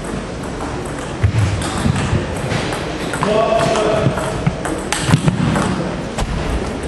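Table tennis ball clicking off bats and the table during a rally, several sharp hits a second or so apart. A voice calls out about three seconds in, with low thuds of footwork on the wooden floor.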